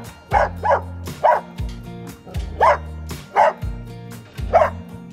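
A dog barking, about six short barks at uneven intervals, over background music with a steady bass line.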